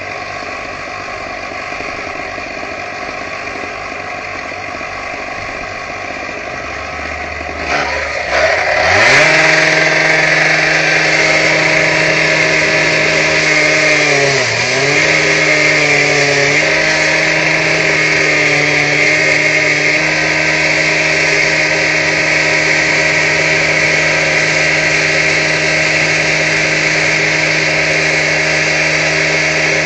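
Handheld power saw with a masonry blade cutting into the brick wall. A steady machine hum at first, then the blade spins up to full speed about eight to nine seconds in and runs with a steady high whine, dipping briefly in pitch around fourteen to fifteen seconds as it bogs under the load of the cut.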